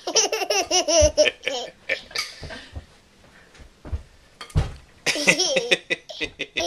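Baby laughing in a run of high, quivering giggles, falling quiet for a couple of seconds, then breaking into laughter again near the end, with a few dull low thumps in between.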